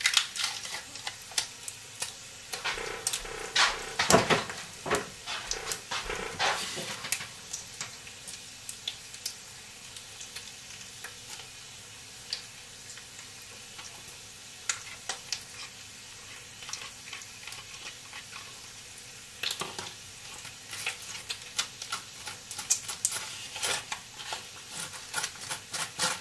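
Butter knife scraping across toast in runs of quick strokes during the first several seconds and again in the last seven or so, with bacon sizzling steadily behind.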